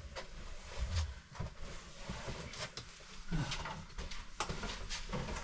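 Handling noise of things being moved about in a small storage room: rustling with many light clicks and knocks, and a few low thumps in the first second.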